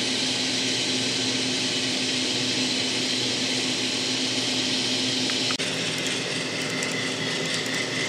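N-scale model freight train running: a steady whir of the small locomotive motors and wheels on the track. The sound changes abruptly about five and a half seconds in, with faint light ticks after it.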